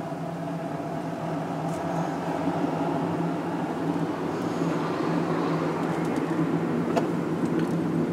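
Steady engine and tyre noise of a car in motion, heard from inside the cabin, with a light click about seven seconds in.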